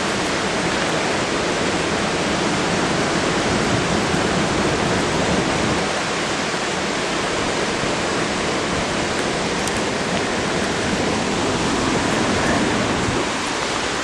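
Steady rushing of the Arkansas River's moving water, an even hiss of current close to the kayak.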